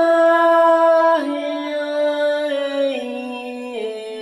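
A woman's voice singing a long, wordless held note in a meditation mantra, stepping down in pitch about three times.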